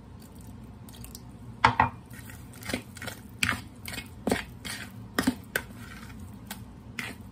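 A utensil clinking and knocking against a mixing bowl while pancake batter is stirred, in irregular strokes about once a second.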